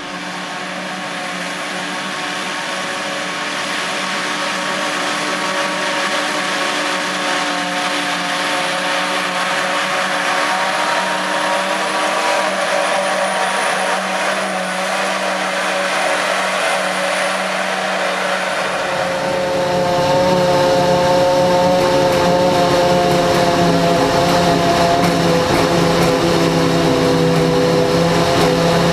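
John Deere 7450i self-propelled forage harvester running under load as it picks up and chops grass for silage: a steady engine drone with a faint high whine. About two-thirds of the way through the sound changes, turning louder with a heavy low rumble, heard up close from the pickup header.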